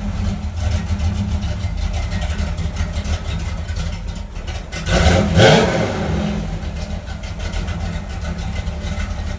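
Car engine running steadily, with a brief rev about five seconds in.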